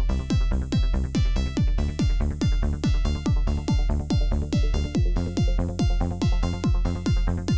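Electronic dance music with a steady kick drum about two beats a second, under layered synthesizer tones.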